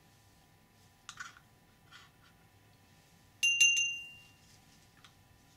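A plastic spatula scraping and tapping against a porcelain mortar as titanium dioxide powder is spooned in: light scrapes about a second in, then a quick cluster of two or three clinks with a brief ringing tone about three and a half seconds in.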